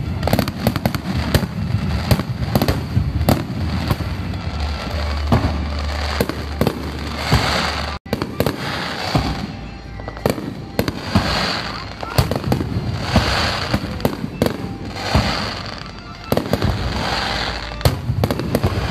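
Fireworks display in a continuous barrage: aerial shells bursting in rapid, overlapping bangs. The sound drops out for an instant about eight seconds in.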